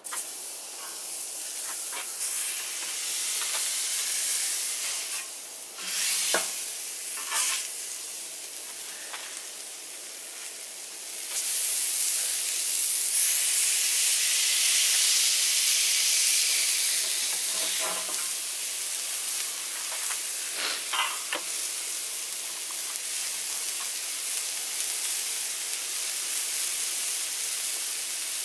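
80/20 ground-beef patties sizzling on a hot griddle plate over charcoal. The sizzle starts as the first patty goes down and gets louder about twelve seconds in, when a second patty is smashed flat. A few short clinks of the metal tools come through it.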